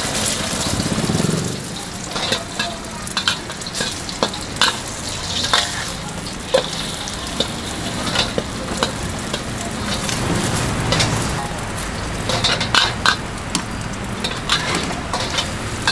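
Food sizzling in a hot pan as it is stir-fried, with a metal spatula clinking and scraping against the pan at irregular intervals.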